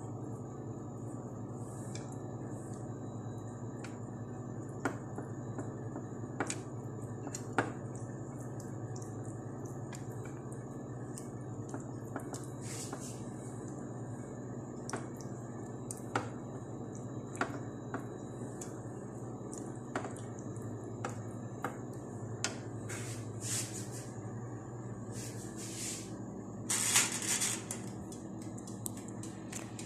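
Silicone pastry brush basting roasted chicken pieces in a metal roasting tray: soft wet dabbing with scattered light clicks and taps against the pan, over a steady low hum. A louder scraping noise lasting about a second comes near the end.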